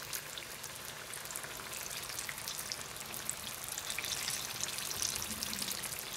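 Flour-coated jackfruit pieces shallow-frying in hot oil in a wok: a steady crackling sizzle of many small pops, a little louder in the second half.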